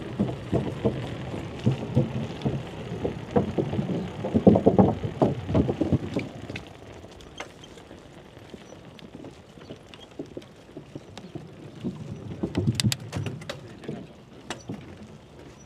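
Wind buffeting the microphone of a chest-mounted camera on a moving bicycle, heavy for about the first six seconds and then easing off, with scattered light clicks and rattles near the end.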